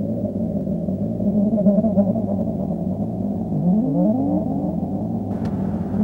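Low, steady droning rumble with slow, wavering tones that glide up and down.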